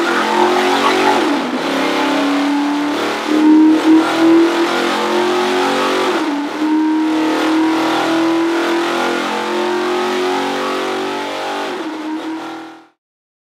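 GM LS3 6.2-litre V8 crate engine with Borla eight-stack individual throttle-body injection, running hard near 6,000 rpm on an engine dyno. Its steady note dips briefly and comes back up three times, about a second, six seconds and twelve seconds in, and the sound stops abruptly just before the end.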